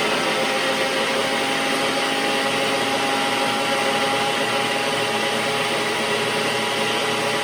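Blender running steadily at one speed, puréeing a liquid mole sauce of chicken broth, mole paste, onion and garlic.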